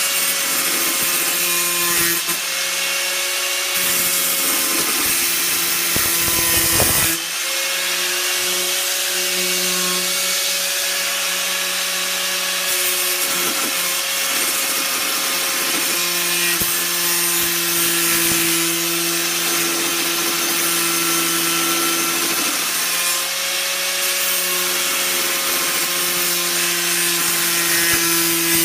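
Hyper Tough angle grinder with an abrasive cutting wheel cutting through the thick steel bar of a Stanley nail claw held in a vise. It is a steady motor whine over a hissing grind, with the note dipping briefly a few times along the way.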